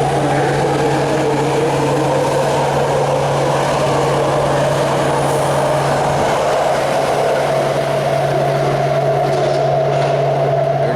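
BART train running through an underground station: a loud, steady rumble with a high whine over it.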